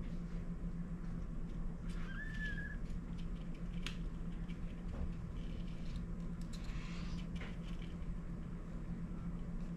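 A newborn kitten gives one short, high squeaking mew about two seconds in, with a fainter one near the end. Soft rustling in the bedding, a click, and a steady low hum sit underneath.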